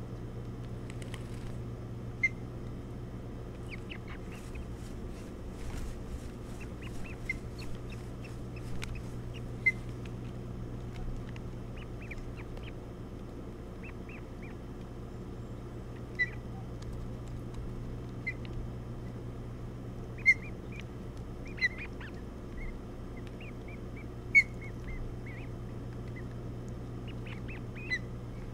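Ospreys at the nest giving short, scattered chirps, a few of them sharp and loud, over a steady low hum.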